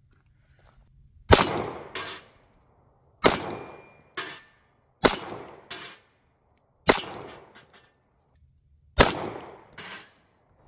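Stoeger STR-9 9mm pistol fired five times at steel bowling-pin targets, slow aimed shots about two seconds apart, each followed less than a second later by a fainter knock.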